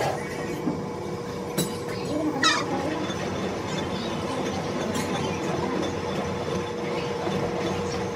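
Metal lathe running with a gear spinning in its chuck: a steady hum with a constant whine, broken by a few light clicks and a brief sharp squeak about two and a half seconds in.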